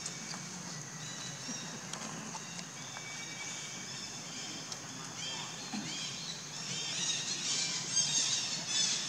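Baby macaque squealing: short, high, rising-and-falling squeals that start sparse and come thick and fast in the last few seconds.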